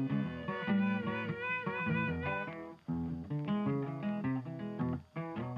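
Background music: a plucked-string melody, guitar-like, that briefly cuts out twice.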